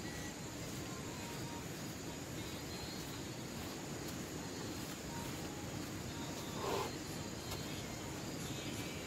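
Night insects, crickets, chirping with a steady high trill over even background noise. A brief louder sound breaks in about seven seconds in.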